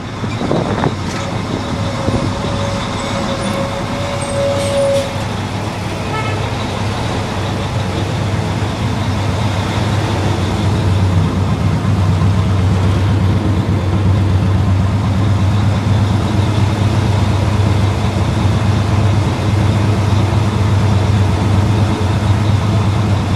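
Fire truck's engine running as it drives, with road and wind noise; its low drone grows stronger about ten seconds in. A steady tone sounds for a few seconds near the start.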